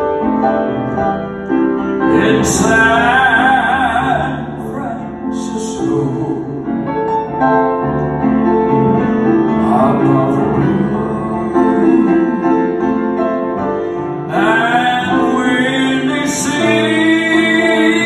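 A male singer singing a slow ballad live to grand piano accompaniment, holding long notes with vibrato.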